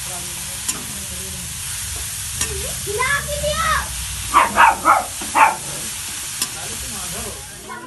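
Grated carrots sizzling in ghee in a metal kadhai as they are stirred, the metal spatula scraping and clicking against the pan. From about three to five and a half seconds in, a few short, louder pitched sounds sit over the sizzle.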